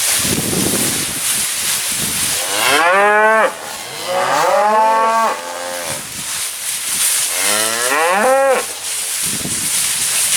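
Black Angus cattle mooing: three long calls, the first two close together and a third about three seconds later, over a steady hiss.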